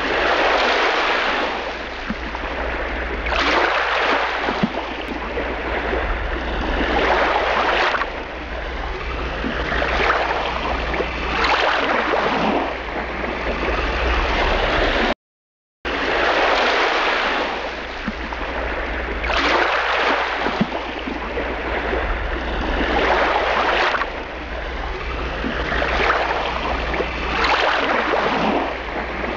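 Rushing sea water, swelling and falling every few seconds like waves washing in. The same stretch of about 15 seconds plays twice, with a brief dropout to silence about halfway through.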